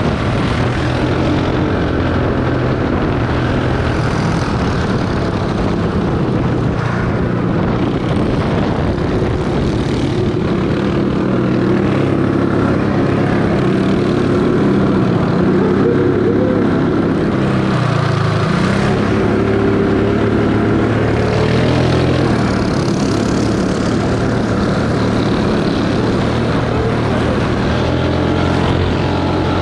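Small cycle kart engines running at speed on a race track, heard from the driver's seat. The engine note dips and then climbs back up about two-thirds of the way through.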